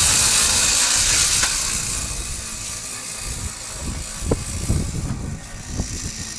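Gas-powered ice auger engine running, fading over the first three seconds, with a couple of sharp knocks later on.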